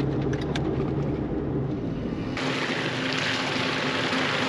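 Four-wheel-drive vehicle driving on a dirt forest track: a steady low engine drone with a few light clicks at first, then, about two and a half seconds in, an abrupt switch to a louder broad hiss over a steady engine tone.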